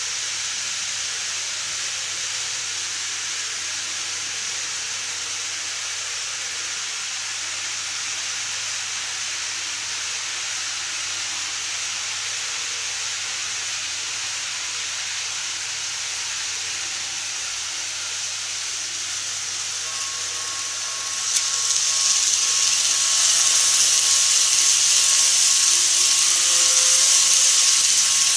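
Steady hiss, then, about twenty seconds in, a KATO E259 Narita Express model train runs up and past close by. It brings a louder rushing of wheels on the track, with a faint steady motor whine.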